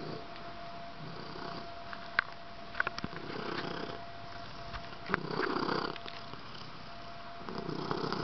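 Domestic cat purring close to the microphone, the purr swelling and easing about every two seconds with its breathing. A few sharp clicks come in the middle.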